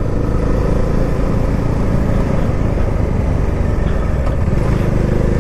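Motorcycle engine running steadily while riding along at road speed, heard from the rider's seat over a dense, even rumble.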